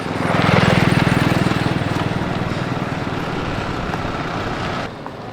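A small engine running close by with a rapid, even pulse. It is loudest in the first second or two, then eases off, and cuts off suddenly near the end.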